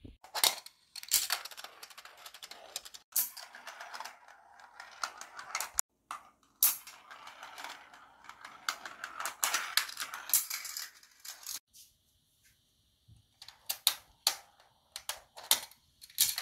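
Marbles rolling through a Gravitrax marble run over plastic track and metal rails: a rushing roll broken by many sharp clicks as they drop and strike the pieces. It breaks off for short moments, longest about two-thirds of the way through.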